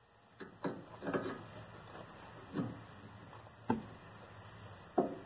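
A combination wrench clicking and clinking against the rusty jam nut of an outer tie rod as it is turned in short strokes: about six light metallic taps, irregularly spaced.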